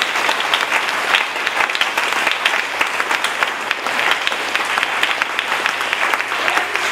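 A congregation clapping their hands together, a dense, continuous applause of many hands.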